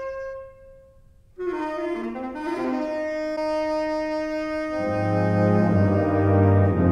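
Concert wind band playing slow sustained chords. A lone held note fades away, and after a short pause the ensemble comes in together on a held chord. Low instruments join about five seconds in and the sound grows fuller and louder.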